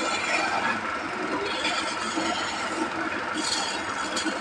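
Sawmill machinery running steadily, a continuous mechanical hum with a faint steady whine and a short burst of higher hiss about three and a half seconds in.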